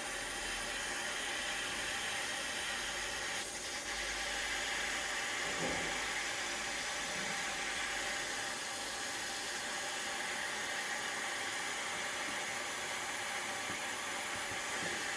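Small refillable butane pen torch burning with a steady hiss, its flame heating a copper solder-ring elbow so the solder flows around the joint.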